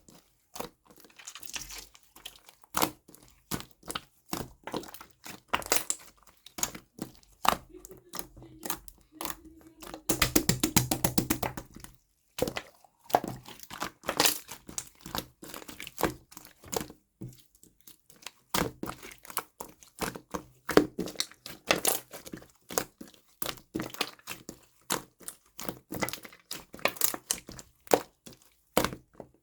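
Glittery jelly slime being squeezed and worked by hand, giving irregular sticky clicks and pops, with a fast run of clicks about ten seconds in.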